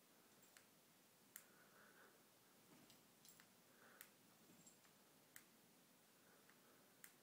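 Near silence: faint room tone broken by about half a dozen faint, sharp clicks at irregular intervals.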